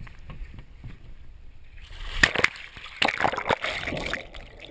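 Lake water splashing and sloshing, faint at first, then louder, choppier splashes from about two seconds in.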